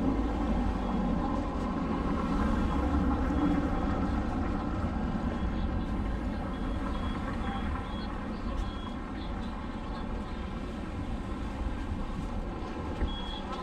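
Steady running noise of a large vehicle: a low rumble under a constant whine of evenly spaced tones, with a few short high beeps about six to eight seconds in and again near the end.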